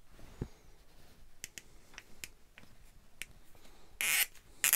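Small screwdriver turning a locking screw inside a metal lamp holder to jam its threads: scattered light clicks and ticks, then about four seconds in two short scraping rasps of metal on metal.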